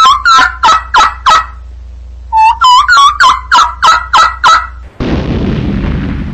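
Turkey gobbling sound effect, two rapid rattling series of calls in a row, loud. About five seconds in, a broad rumbling roar takes over.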